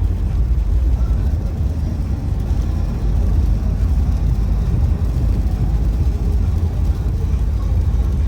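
Steady low rumble of a car on the move, engine and road noise with no distinct events.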